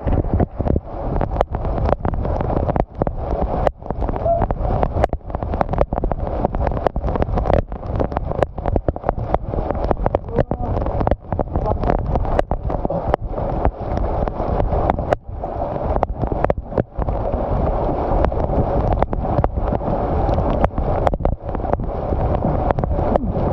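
Wind buffeting the microphone: a loud, rough rumbling noise that keeps cutting out for an instant.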